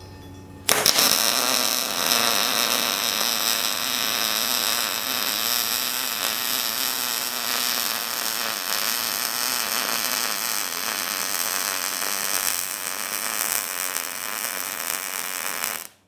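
MIG welder's arc crackling steadily as a bead is laid, starting abruptly about a second in and cutting off just before the end.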